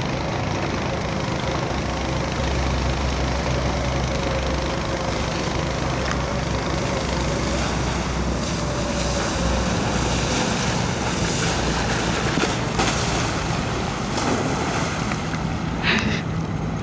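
Tow winch motor running steadily, with wind buffeting the microphone. Near the end, a splash as the rider falls into the shallow water.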